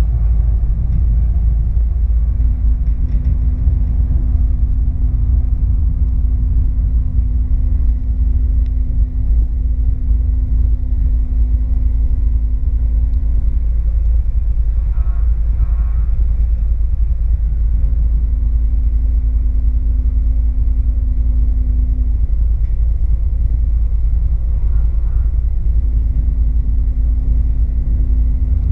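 Loud, steady low rumble of a vehicle travelling along a city street. A steady low hum sits on top of it in three stretches: from about 2 s to 14 s, again from about 17 s to 22 s, and near the end.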